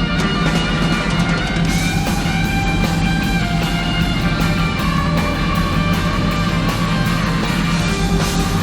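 Rock music led by guitar, playing steadily with sustained melodic notes.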